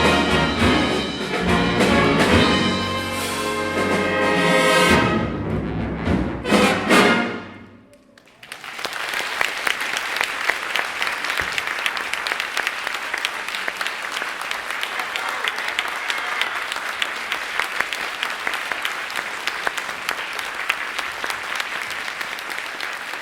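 A junior jazz big band with trumpets and trombones plays its final bars, ending on a few sharp accented chords about seven seconds in. After a brief gap, the audience bursts into steady applause that slowly fades near the end.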